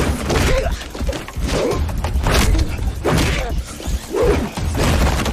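Sound-designed TV fight: a run of hits and swooshes of punches and grappling, about one a second, over the steady low beat of hip-hop music.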